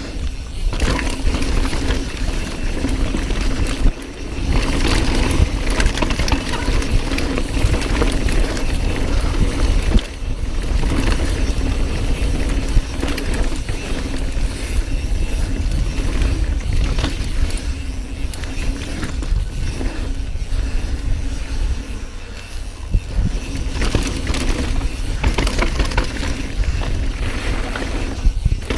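A mountain bike riding a rough downhill trail, heard from the rider's camera: wind buffeting the microphone, with the bike rattling and knocking over bumps.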